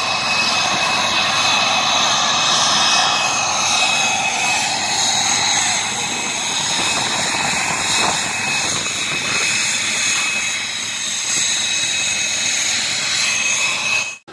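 Aircraft turbine engine running, a steady high whine over a rushing noise, which cuts off suddenly near the end.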